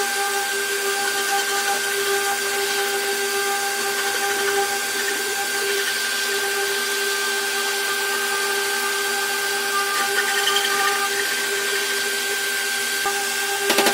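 Electric power tool running steadily with an even motor whine and a steady rush of noise, a couple of sharp knocks right at the end.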